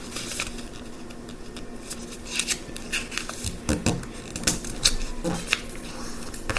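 A sheet of paper being folded and creased by hand: irregular short, crisp rustles, more frequent from about two seconds in.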